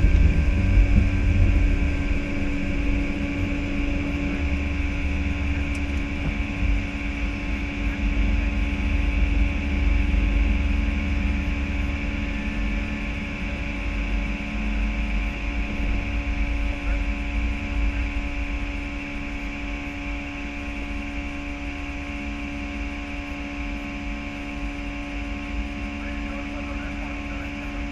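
Airbus A319 cockpit noise through the end of the takeoff roll, liftoff and initial climb: a heavy low rumble that is strongest at the start and eases after liftoff, over a steady hum with a few constant tones. It grows gradually quieter in the second half.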